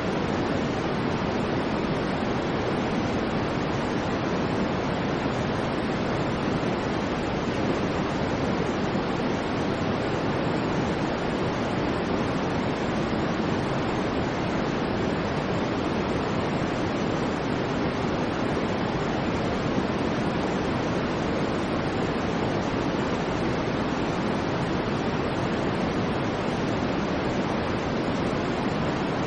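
Continuous electronically generated white noise for sleep: an even, unchanging hiss with no breaks or events, fuller in the low and middle range than at the top.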